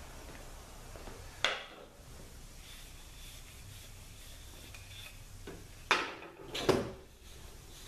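A black plastic seal-installer ring set down on a steel workbench: two sharp knocks a little under a second apart, about six seconds in, after a single click earlier.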